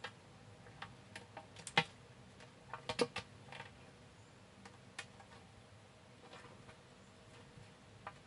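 Sugar glider eating and moving about in a plastic tub: irregular sharp clicks and crunches, the loudest about two seconds in and a quick cluster about three seconds in.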